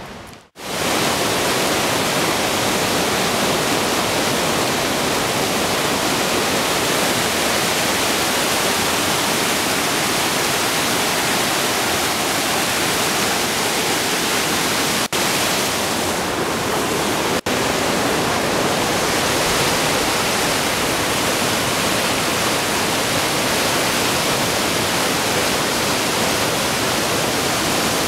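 Loud steady rush of a mountain creek's whitewater rapids tumbling around boulders, cut by two very brief dropouts about halfway through.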